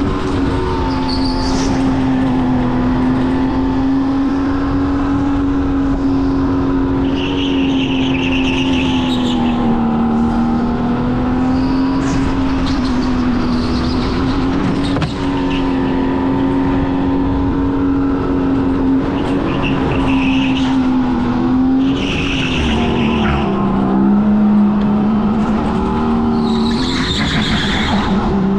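Racing go-kart lapping at speed, its motor giving a steady drone whose pitch dips a little and recovers through the corners. The tyres squeal in short bursts four times.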